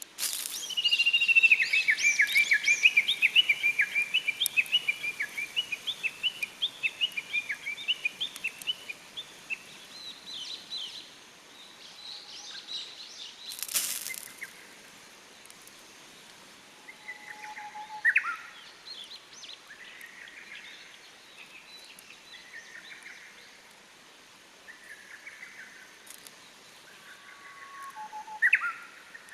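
Wild songbirds singing: one bird gives a long, fast run of repeated notes for the first ten seconds or so, fading as it goes, followed by scattered short chirps and phrases. A single sharp crack about halfway through.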